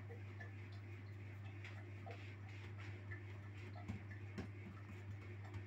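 Hands pressing and patting pizza dough out on a pizza stone, with faint irregular ticks and a few soft knocks, the clearest about four seconds in and near the end. A steady low hum runs underneath.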